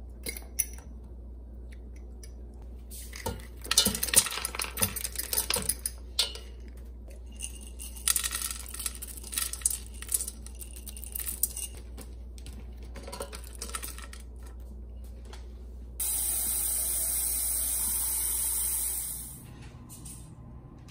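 Kitchenware being handled: a run of sharp clinks and knocks, then a steady hiss that starts and stops abruptly and lasts about three seconds.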